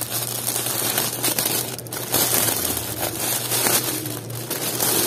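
Clear plastic packaging bag crinkling and rustling as hands pull folded polo-shirt uniforms out of it.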